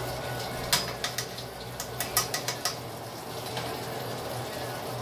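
Mixed vegetables sizzling steadily in a hot wok, with a spatula knocking against the pan in a quick run of clicks from about one to three seconds in.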